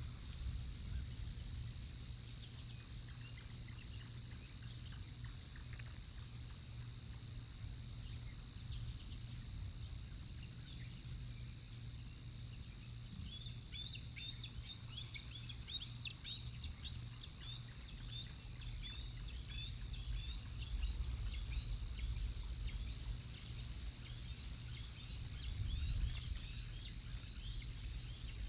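Juvenile bald eagles squeeing: a long series of high, piping chirps that starts about halfway through and repeats until the end, over a steady low rumble. It is the young eagles' squee while they mantle over food they are eating and won't share.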